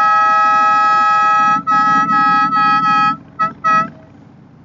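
Motorcycle horn honked loudly at a deer to scare it off the road: one long blast lasting about a second and a half, then a string of short honks, and two quick toots near the end.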